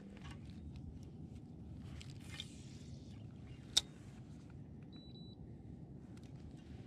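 Low steady rumble of wind and water around a fishing kayak, with faint handling ticks, one sharp click a little under four seconds in, and a short high electronic beep about a second later.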